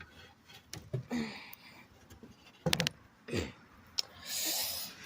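Scattered light clicks and knocks of metal parts being handled on an old Singer sewing machine, as a lever is worked, with a soft hiss near the end.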